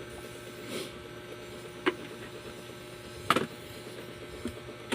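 Handling noise: a few light clicks and knocks, the loudest a little past halfway, over a faint steady electrical hum.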